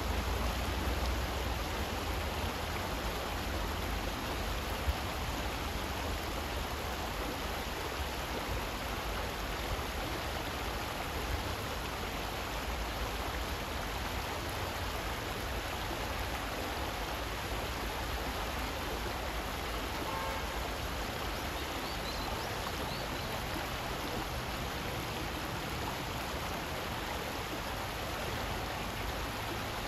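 Shallow stream running over rocks: a steady rush of flowing water, with a couple of faint knocks and a faint short high note about twenty seconds in.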